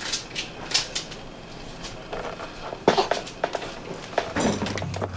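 Scattered light knocks and clicks of wood being handled, with some shuffling: a wooden batten and timber on wooden staging beside the boat's frames. The sharpest knock comes about three seconds in.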